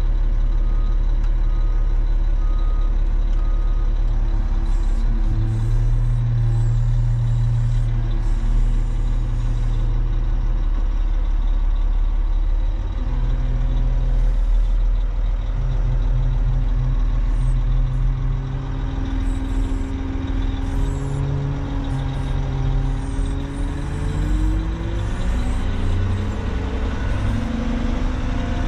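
Cat 730 articulated dump truck's diesel engine running under the cab, its pitch shifting as the truck is driven and climbing near the end. A reversing alarm beeps steadily for the first few seconds.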